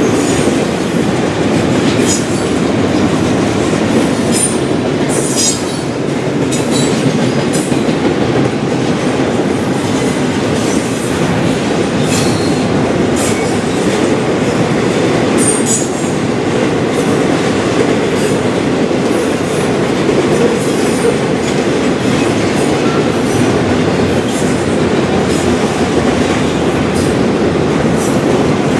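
Freight train cars rolling past on the rails: a steady rumble with irregular wheel clicks and brief high squeals from the wheels.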